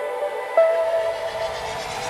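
Background music: a held melodic note, with a new note coming in about half a second in and a rising swell beginning near the end.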